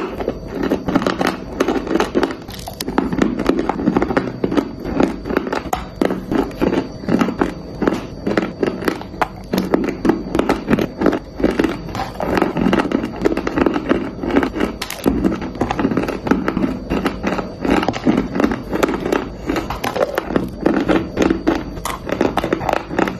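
Dry clay chunks being bitten and chewed close to the microphone: dense, rapid crunching with many sharp cracks.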